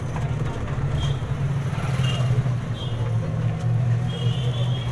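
Steady low rumble of a motor vehicle on the move, heard from inside an open-sided rickshaw-type passenger vehicle, with a few brief high beeps.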